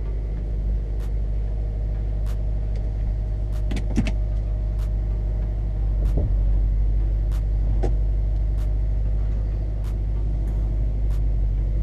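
A 2019 Subaru WRX STI's turbocharged 2.5-litre flat-four idling, heard from inside the cabin as a steady low hum while the car backs slowly out. Faint clicks come about every second and a quarter.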